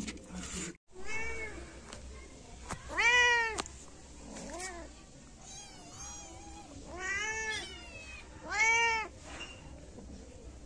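Month-old kittens meowing. About six high meows, each rising then falling in pitch, with the loudest about three seconds in and another near the end.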